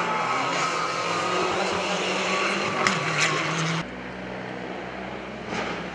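Rally car's turbocharged engine running hard through a bend, with a couple of sharp pops about three seconds in. About four seconds in the sound cuts abruptly to a quieter, more distant engine.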